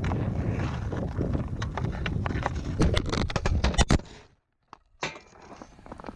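Wind rumbling on a camera microphone fixed to a hockey net, with clicks and scrapes of skates, stick and puck on outdoor ice. A burst of sharp knocks comes about three to four seconds in as the shot strikes the net and knocks the camera over. The sound then nearly cuts out for about a second and returns much quieter.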